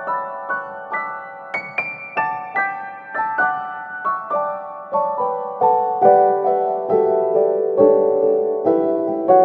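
Background music: a gentle solo piano melody, single notes struck about twice a second and left to ring.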